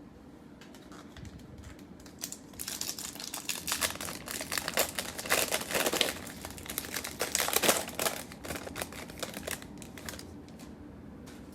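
Foil trading-card pack wrapper crinkling and being torn open by hand, in a dense run of crackles for several seconds that is loudest near the middle.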